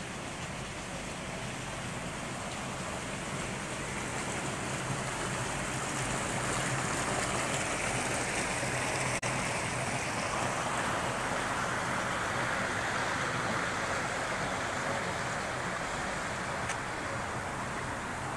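Running water in a shallow stream and its concrete channel: a steady rushing that grows a little louder after the first few seconds, with a brief break about nine seconds in.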